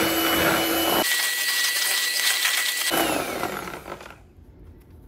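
Electric hand mixer running, its twin wire beaters whisking thin pancake batter in a plastic bowl, a steady whir that winds down and stops about four seconds in.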